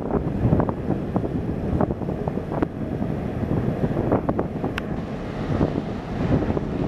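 Wind buffeting the microphone over choppy harbour water stirred by a docking ferry, with water sloshing and a scattering of short sharp clicks and slaps.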